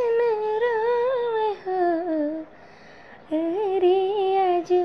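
A woman singing a bidai (bride's farewell) folk song unaccompanied, without words, on long held notes that waver and fall. Two slow phrases, with a short breath pause between them a little past halfway.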